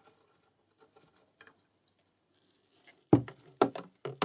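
Sulphuric acid being poured a little at a time from a bottle into distilled water in a plastic jerrycan: faint pattering at first, then three loud glugs about half a second apart near the end.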